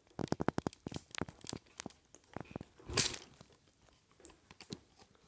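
Quick hard-plastic clicks and rattles as a canister vacuum's hose handle is worked against the wand's push-button lock, with one louder knock about three seconds in. The joint is stiff and not yet coming apart on a nearly new vacuum.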